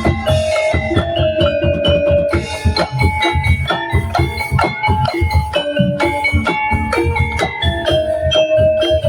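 Tongtek ensemble playing: dense, fast rhythmic percussion with drum hits under a pitched, mallet-like melody.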